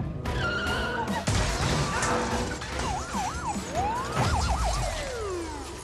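Cars smashing out through showroom windows, with glass shattering in several crashes over the first two seconds. A police siren then wails in fast rising and falling sweeps, over tense film score music.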